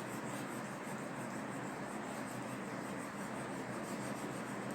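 A crayon rubbing steadily back and forth on paper, colouring in small pebbles.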